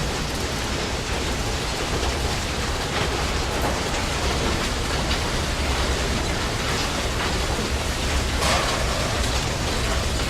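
Automobile repair shop ambience: a steady wash of noise over a low machine hum, with faint clanks now and then.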